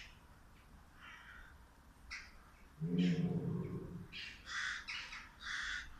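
A tiger gives one short, low call about three seconds in. Harsh bird calls sound repeatedly around it, in a string of short cries through the second half.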